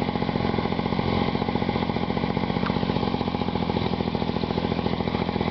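Engine of a 1997 Arctic Cat Kitty Cat children's snowmobile running at low speed with a steady, rapid putter.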